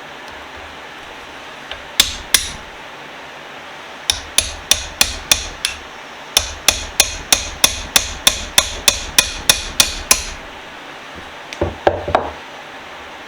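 A hammer striking metal in sharp, ringing blows to drive a pin out of a small cast iron hand vise. There are two blows, then a steady run of about twenty at roughly three a second. Near the end come a few duller knocks.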